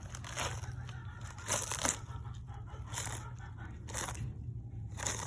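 An animal biting and crunching romaine lettuce, with a sharp crunch roughly once a second over a steady low hum.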